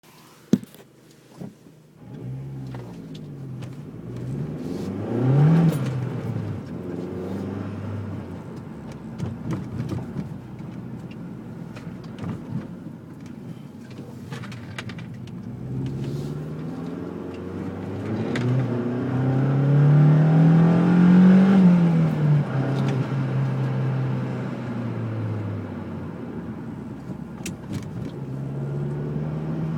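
A car engine, after a couple of clicks, starts running about two seconds in and idles. It is revved briefly once near the six-second mark, then later given a slower, longer rev that rises and falls back to idle. This is the engine noise the owner is recording to show.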